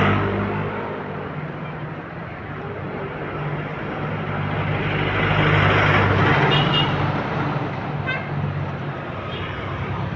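Large bus engine running close by with road and traffic noise, growing louder toward the middle and easing off. A few faint, short high beeps come in the second half.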